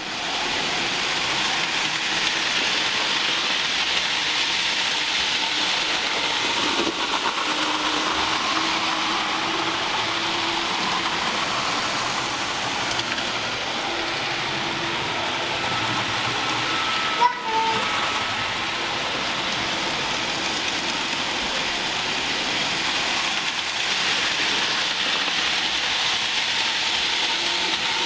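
Steady hissing noise, with a single click and a short tone about seventeen seconds in.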